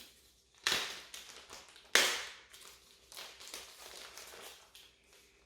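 Unboxing handling noises: packaging rustled and scraped as the smart telescope is taken out. Two sudden rustling noises come about a second and two seconds in, each fading away, followed by fainter handling sounds.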